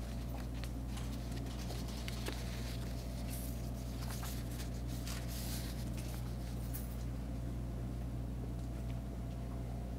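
A steady low electrical hum, with faint ticks of fingertips tapping on a touchscreen keyboard that thin out about seven seconds in.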